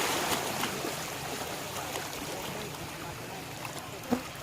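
Steady rush of water, with a single sharp knock about four seconds in.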